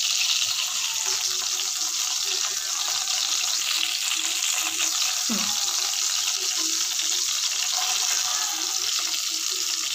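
Refined oil sizzling steadily in a wok, with chopped onion tipped into the hot oil near the end.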